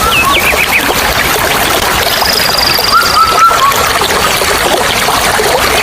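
Waterfall rushing steadily, with birds calling over it: a few quick chirps at the start, a thin high trill about two seconds in, and whistled notes around three seconds.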